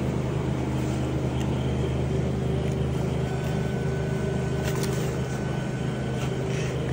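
A steady low machinery hum, with a few faint clicks and scrapes as the hanging beef is cut and handled.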